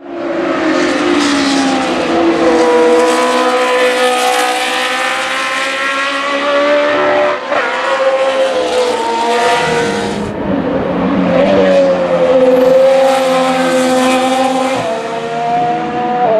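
Formula One racing car engine running at high revs on track, its pitch gliding up and down with brief breaks as it shifts gear. The sound changes abruptly about ten seconds in, as if to a different car.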